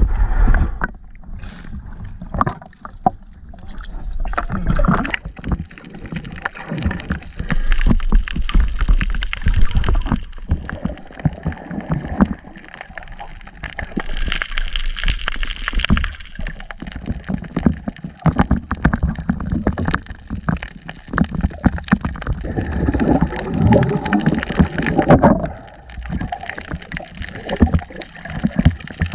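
Water sloshing and gurgling around a diver's camera as it moves at the surface and under water, with many irregular small clicks and knocks.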